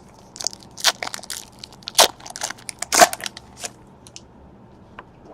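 Trading cards and their plastic and foil packaging being handled: a run of short crinkling, crackling noises, the loudest about two and three seconds in.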